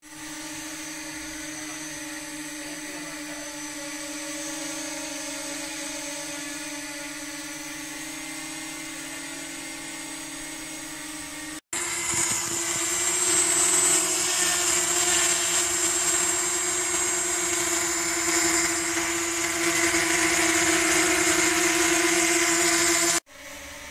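Hubsan Zino Mini SE quadcopter hovering on orange Master Airscrew propellers, with a steady propeller hum. About halfway there is a cut to the same drone on black propellers, louder and hissier with a slightly higher main tone. Just before the end there is a cut to a quieter hum.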